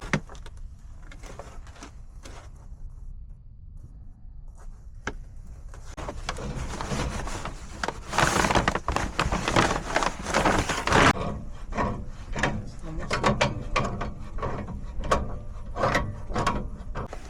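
Clicks and scraping of metal gas pipe fittings as a 1/2-inch elbow is fitted and screwed onto the threaded gas line. Sparse at first, growing denser and louder from about six seconds in.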